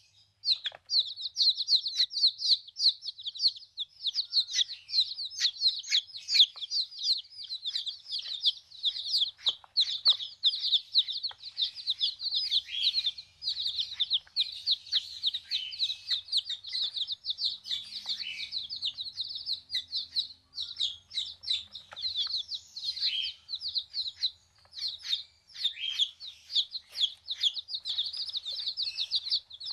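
A flock of young broiler chickens peeping: a dense, continuous chorus of many high, short, falling chirps overlapping without pause.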